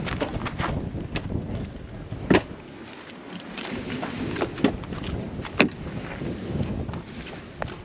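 Wind rumbling and buffeting on the microphone as the camera is carried, with scattered handling clicks and knocks. Two sharp knocks stand out, one about two and a half seconds in and one about five and a half seconds in.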